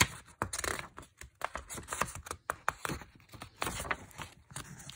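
Pages of a paperback book being turned by hand: a quick, irregular run of paper rustles and crackles with small taps.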